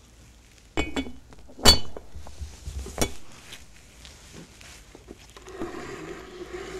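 Toy tea-set dishes clinking against each other on a small table: a few sharp, ringing clinks in the first three seconds, the loudest about a second and a half in. Quieter knocks follow, and a longer low sound near the end.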